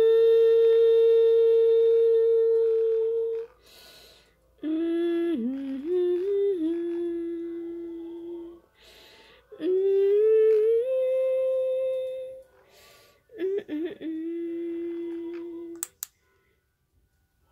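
A woman humming a song in long held notes, in four phrases with short gaps between them.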